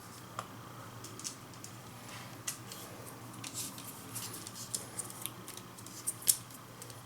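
Plastic casing of a TV remote control being pressed and snapped back together by hand: a series of short, sharp irregular clicks, the loudest about six seconds in.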